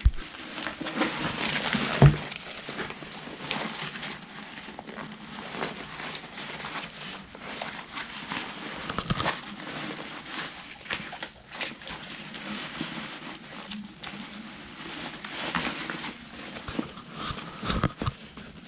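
Rustling and crinkling of a Zpacks Arc Haul backpack's fabric, mesh and webbing being handled and adjusted by hand, with a few sharp knocks; the loudest comes about two seconds in.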